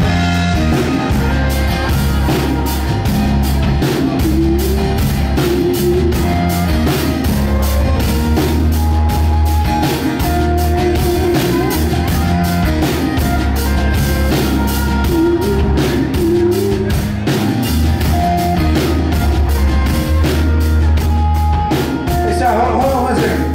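Live rock band playing a song: drum kit keeping a steady beat with regular cymbal strokes under bass and electric and acoustic guitars.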